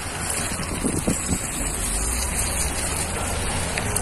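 Steady rushing of muddy floodwater pouring across a gravel riverbed, with wind rumbling on the microphone.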